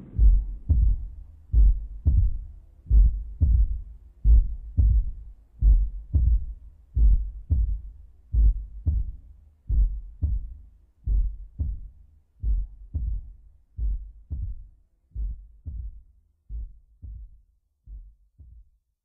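Heartbeat in the soundtrack: low double thumps (lub-dub), about one beat every second and a half, slowing and fading away toward the end.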